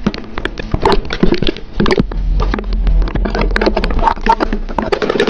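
Many small clicks and knocks in quick succession, with some low talk and a low hum from about two seconds in.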